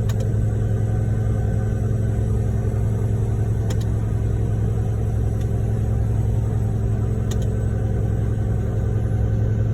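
Heavy diesel truck engine running steadily at a constant speed with a deep, even hum.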